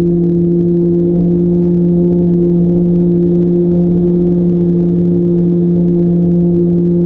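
Radio-controlled plane's motor and propeller running at a steady speed: a steady hum with overtones, over a low rumble of wind on the microphone.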